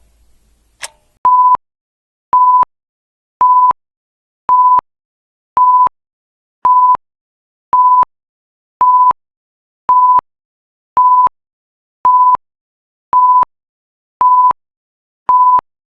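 One last clock tick about a second in, then a countdown timer's end alarm: a short electronic beep at one steady pitch, repeated about once a second. It signals that the two minutes are up.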